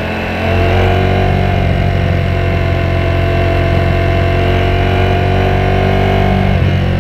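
Ducati Panigale V4S's V4 engine pulling under way, its note slowly rising with the revs. There is a brief drop and change in pitch just after the start and another about six and a half seconds in, typical of gear changes.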